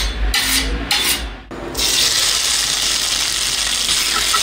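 Three short rasping strokes of a hand-held kitchen tool. About a second and a half in, chicken pieces start sizzling in a hot cast-iron pan, a steady frying hiss.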